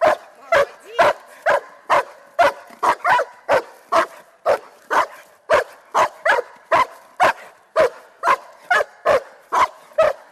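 German Shepherd barking in a steady, rapid series of loud barks, about two to three a second, aroused by a protection-training helper's agitation.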